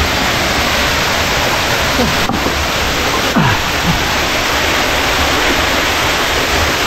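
Steady rush of falling water, loud and unbroken. A few faint voice fragments come through about two and three and a half seconds in.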